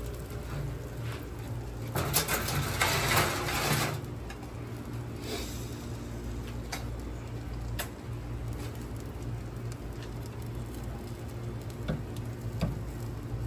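Sausages and boudin sizzling on a charcoal grill, with a louder rush of noise about two to four seconds in. A few sharp clicks of metal tongs on the grill grate come later, over a steady low rumble.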